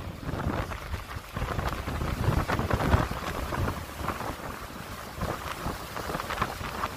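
Strong gusting wind buffeting the phone's microphone: a rumbling, rushing noise that rises and falls with each gust, with scattered sharp thumps.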